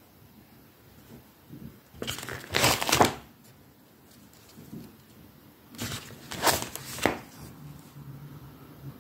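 Printed paper pages being turned by hand, rustling twice: about two seconds in, then again around six seconds in.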